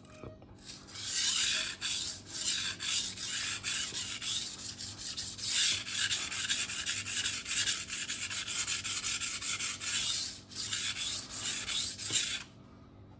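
Steel knife edge scraping back and forth across the 400-grit side of a vitrified diamond whetstone in many quick strokes, a gritty hiss. It starts about a second in, breaks off briefly near the end, resumes and then stops.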